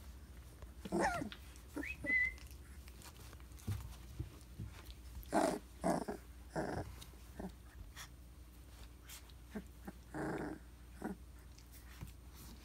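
Three-week-old Briard puppies play-fighting and mouthing a toy, giving small puppy vocalisations: a falling whine about a second in and a brief high squeak, then several short growls in the middle and another near the end.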